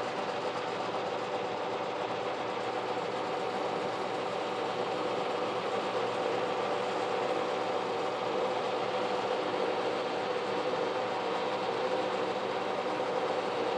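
Kearney & Trecker horizontal mill driving a large slitting saw through a 2-inch-thick CPVC round. It makes a steady machine hum with a few held tones over the even noise of the blade cutting the plastic.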